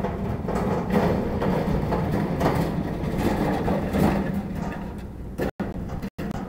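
Metal shopping cart loaded with a barbecue grill being pushed over a concrete sidewalk, its wheels and basket rattling and clattering, easing off after about five seconds as it moves away.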